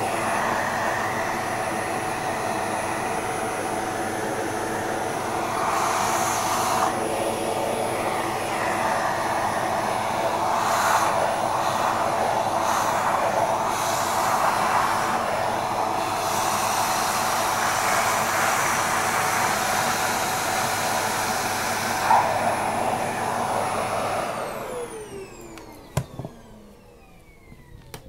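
Vacuum cleaner running with a steady motor whine and rush of air as its brush nozzle is drawn through a cat's fur, the airflow shifting as the nozzle moves. About 24 seconds in it is switched off and the motor winds down with a falling whine.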